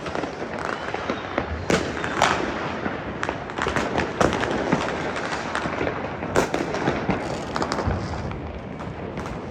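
Many fireworks and firecrackers going off at once: a continuous din of crackling and popping, broken by sharp bangs. The loudest bangs come about two seconds in, around four seconds in and a little past six seconds.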